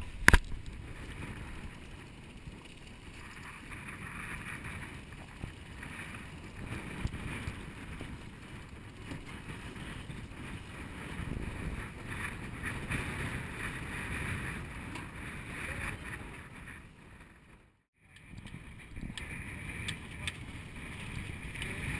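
Wind and sea noise aboard a small outboard-powered fishing boat running through rough, choppy water, with wind buffeting the microphone. A couple of sharp knocks just at the start, and the sound drops out for a moment near the end.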